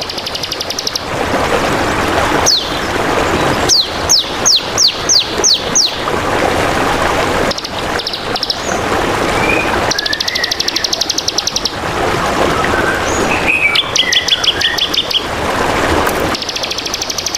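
Songbirds calling over steadily trickling water: rapid buzzy trills come and go, and a run of six quick falling whistles sounds about four seconds in, with scattered chirps between.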